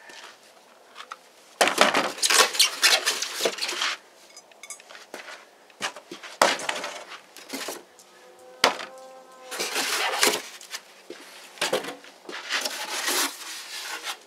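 Packaging being handled and pulled out of a floor jack's box, with bursts of crinkling and rustling. Metal parts clank against each other, and one clank about nine seconds in rings out.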